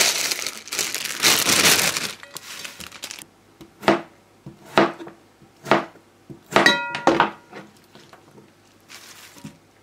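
A plastic bag of salad leaves crinkling as it is handled and emptied, then a knife chopping cucumber on a cutting board in single sharp strokes, about one a second.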